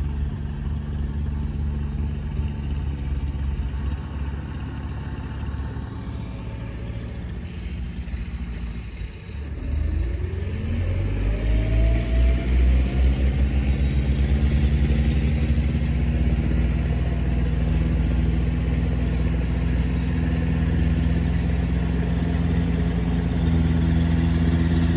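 Engine of a tracked rice carrier loaded with sacks of grain, running as it drives across the field. About nine seconds in it dips, then rises in pitch and runs louder and steadily.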